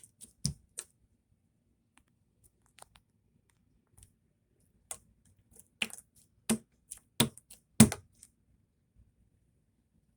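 Scattered short clicks and taps, about ten at irregular intervals, the loudest coming between about six and eight seconds in.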